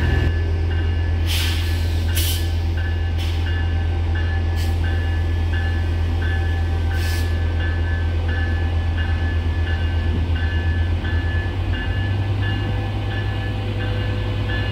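Diesel passenger locomotive idling with a loud, steady low engine drone, a bell ringing evenly a little under twice a second, and five short air hisses in the first seven seconds. About three quarters of the way through, the engine note steps up as the locomotive throttles up to pull away.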